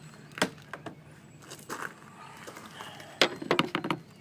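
Sharp clicks and knocks of plastic mirror-housing parts being handled and pressed together, with a quick run of clicks about three seconds in.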